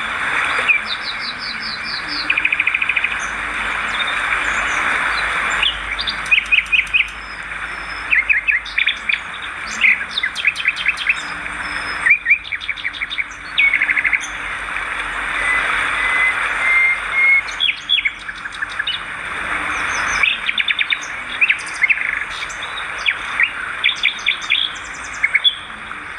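Swiftlets calling: short rapid trains of high chirps and clicks, repeated many times, over a steady hiss.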